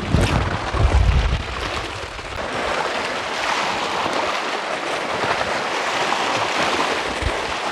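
Wind buffeting the microphone, heaviest in the first second and a half, over a steady hiss of wind and small waves washing against the shore.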